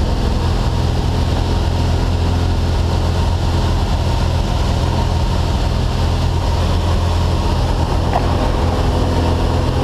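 Steady drone of a skydiving jump plane's propeller engine, heard from inside the cabin.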